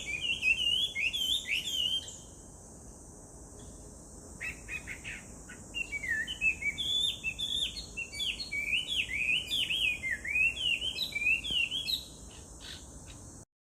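Chinese hwamei singing: fast runs of loud, varied whistled phrases, rising and falling. The song stops after about two seconds and resumes with a few short notes, then a second long run of song. A steady high-pitched hiss sits behind it, and the sound cuts out abruptly near the end.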